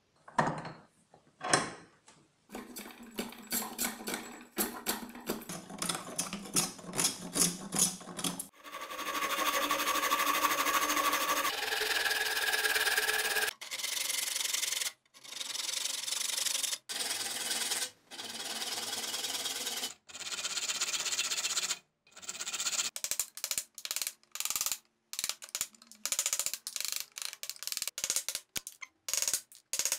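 Hand saw cutting back and forth through a maple handle blank held in a vise, in runs of quick rasping strokes broken by short pauses, making a row of relief cuts.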